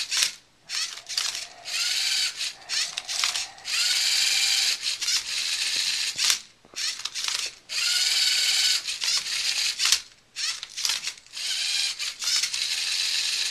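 LEGO Mindstorms NXT servo motors whirring in short runs of a second or so, with brief pauses and sharp plastic clicks between them, as the MindCuber robot's arm flips a Rubik's cube and its turntable turns it.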